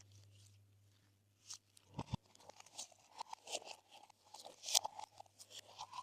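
Glossy slime being mixed and squished, making a run of irregular small wet pops and crackles that starts about a second and a half in.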